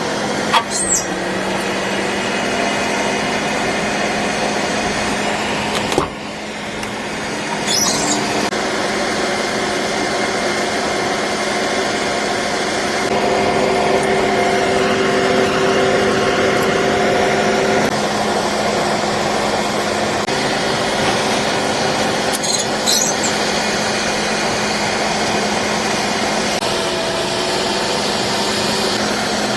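Well-drilling truck's engine running steadily, with a steady whine over it.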